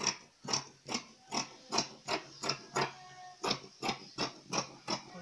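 Dressmaking scissors cutting through folded wax-print cotton fabric, about thirteen snips in a steady rhythm of two to three a second, with a short pause a little past the middle.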